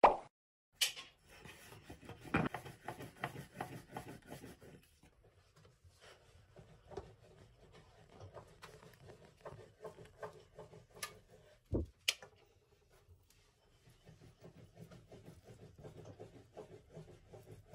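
Metal spoons scraping and stirring dumpling filling in a pan, a quiet irregular rubbing and scraping, with a single low knock about twelve seconds in.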